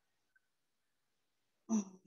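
Quiet, then near the end a dog barks once over the video call.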